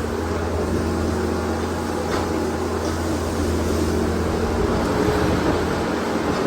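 Farm machinery engine running steadily at a constant speed, with a low, even hum.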